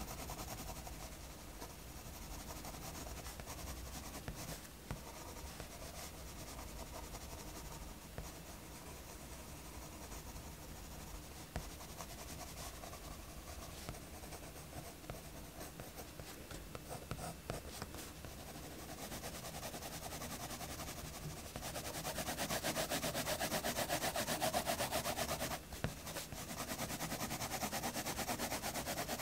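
Mechanical pencil scratching on sketchbook paper: light line strokes at first, then about three quarters of the way in, louder, fast back-and-forth hatching strokes as an area is shaded in.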